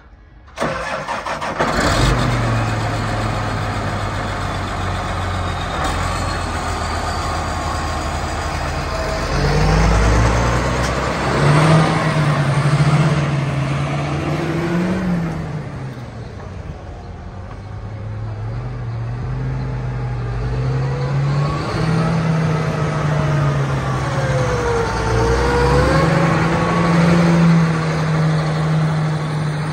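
John Deere 8230 tractor's six-cylinder diesel engine starting up near the beginning, then running at a steady idle. From about ten seconds in it is revved several times, its pitch rising and falling, as the tractor moves off.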